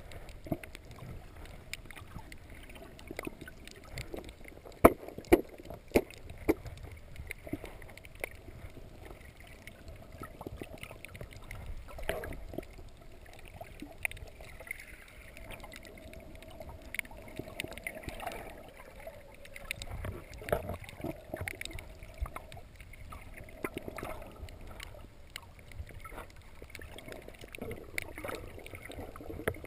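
Muffled water sound picked up by a camera held underwater, with scattered sharp clicks and knocks throughout, the loudest a few about five seconds in.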